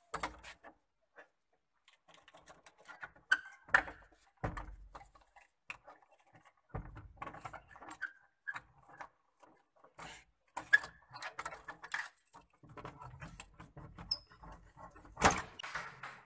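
A key works a padlock and the metal bolt on an old wooden door, making a string of metal clicks and rattles. A louder knock comes near the end as the door is opened.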